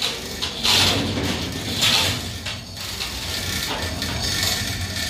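Manual chain hoist being worked by its hand chain, the chains clattering through the block in uneven bursts.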